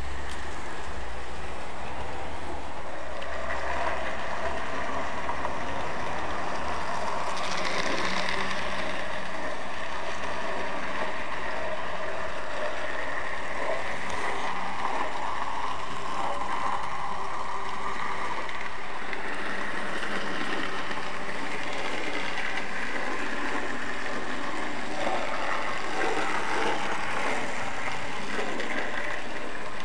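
N gauge model train running on the layout: a steady whirr of the small locomotive motor with the wheels rattling along the track.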